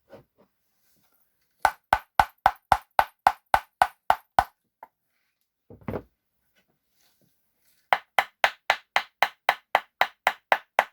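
Wooden flamenco shoe heels, beech and rosewood, being clapped heel against heel in two quick runs of sharp knocks, about four a second, with a single knock between the runs.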